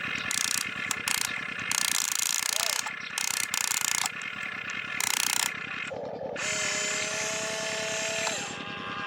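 Small electric gear motors of an RC toy construction vehicle, whirring with a rapid, even ratcheting tick, overlaid by stop-start bursts of hiss in the first half. A steady pitched tone comes in near the end.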